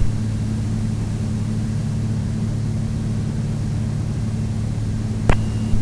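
Steady in-flight drone of a Piper Navajo's twin piston engines and propellers heard from the cockpit, an even hum with a low steady pitch. A brief radio click with a short tone comes about five seconds in.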